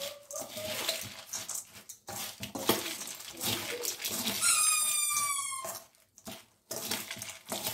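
Steel spoon stirring puffed rice in a stainless steel bowl: rustling, scraping and clinking of metal on metal. About halfway through, a high whine, slightly falling in pitch, sounds for about a second.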